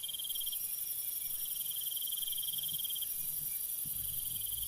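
Crickets chirping in a steady high trill, with a lower pulsing chirp that comes and goes.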